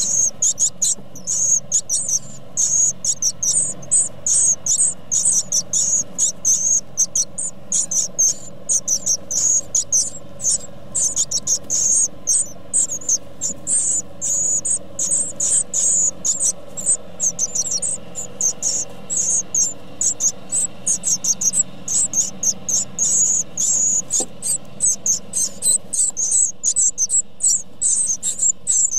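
Great tit nestlings begging to be fed: a dense, continuous chorus of rapid, high-pitched cheeping calls from the brood.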